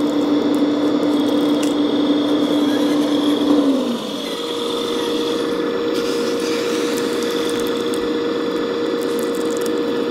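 Radio-controlled scale model of a Caterpillar 374D excavator working: a steady mechanical whine from its motors. About four seconds in, the tone drops away and changes to a higher steady whine as the arm and swing move.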